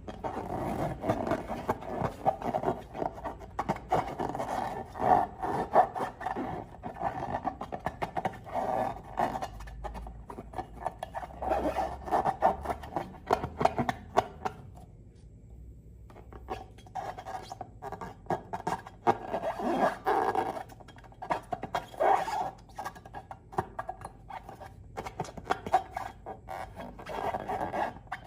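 Slime and rubber balloons being worked by hand: squelching, clicking and crackling, mixed with squeaky rubbing in uneven bursts, with a quieter pause about halfway through.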